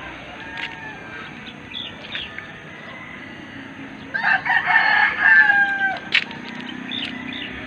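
A rooster crows once, starting about four seconds in and lasting about two seconds, held and then falling away at the end. A few faint short chirps come before it and a sharp click just after.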